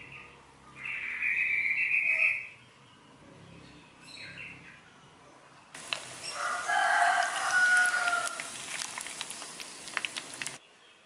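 Bitterballen deep-frying in hot oil: a loud sizzle peppered with crackles and pops, starting about halfway through and cutting off abruptly near the end. Earlier, about a second in, there is a separate loud sound lasting about a second and a half.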